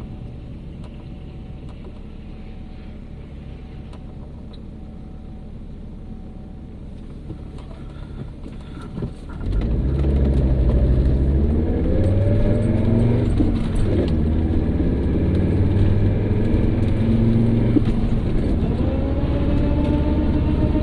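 A 1997 Volvo 850 AWD running with a low rumble, getting much louder about nine and a half seconds in. Tones then rise in pitch as it speeds up, carrying the whirring noise the car has started making.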